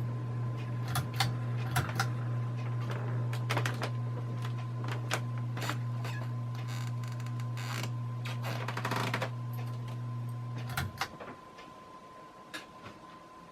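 Hampton Bay Carousel II ceiling fan running on its low speed, its motor giving a steady electrical hum with scattered light ticks and clicks. About 11 seconds in, the hum stops suddenly with a few clicks.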